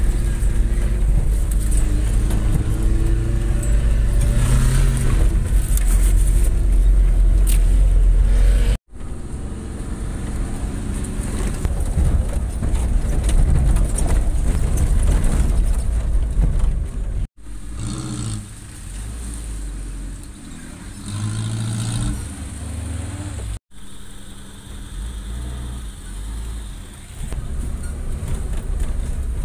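Car engine running and driving on a rough off-road track, a heavy low rumble whose engine pitch rises and falls, in several clips that cut off abruptly and restart.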